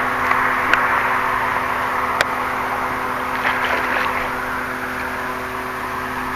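A hooked carp thrashing and splashing at the water's surface about three and a half to four seconds in, over a steady rushing noise with a low hum. Two sharp clicks come in the first couple of seconds.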